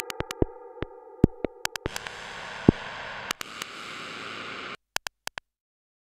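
Electronic soundtrack: a held synthesizer chord with sharp, irregular clicks over it. About two seconds in it gives way to a hiss of noise with scattered clicks, which cuts off suddenly near five seconds, followed by a few last clicks.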